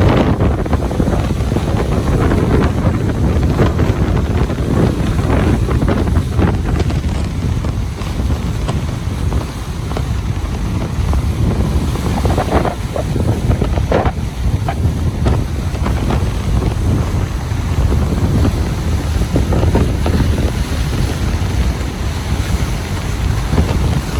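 Ocean surf washing onto a beach, with heavy wind buffeting the microphone into a loud, steady low rumble.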